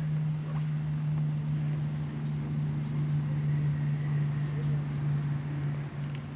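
A steady, low-pitched hum that does not change, with a faint click near the end.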